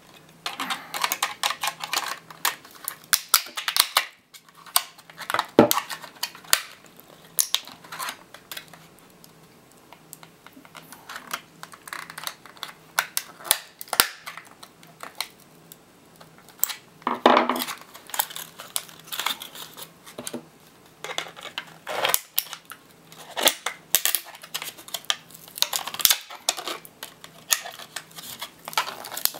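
Black plastic shell of an HP HSTNN-LB88 laptop battery pack being pried open with a flat screwdriver: irregular clicks, creaks and snaps as the clips give, and the steel blade scraping along the seam, most drawn-out about two thirds of the way through.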